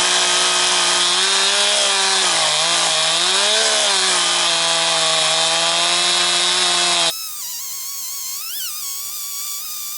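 Chainsaw running hard, cutting into a very hard, dense red box eucalyptus log; its engine pitch dips and recovers a couple of times under the load. About seven seconds in it stops abruptly and gives way to music.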